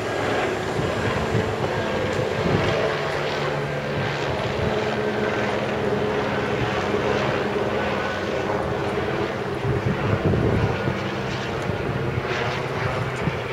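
Aircraft passing overhead: a steady engine drone with several held tones under a rushing noise, swelling slightly about ten seconds in.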